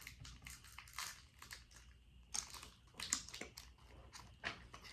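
Plastic snack wrapper crinkling and crackling in irregular bursts as it is handled and opened, a few sharper crackles standing out.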